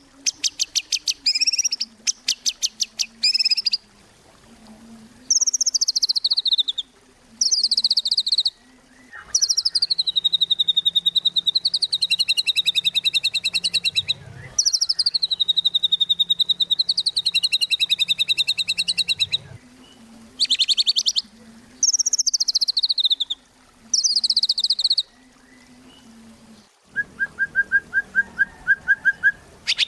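White-rumped shama (murai batu) singing in full song: loud phrases of rapid, rattling notes that sweep down in pitch, repeated with short pauses. Near the end comes a quicker run of about ten lower notes.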